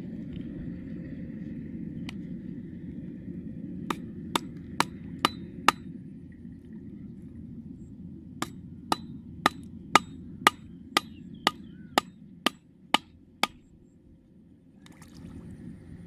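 Hammer blows on a wooden stake: five quick sharp strikes about four seconds in, then a run of about eleven more at an even pace of roughly two a second. A steady low rumble lies underneath and fades near the end.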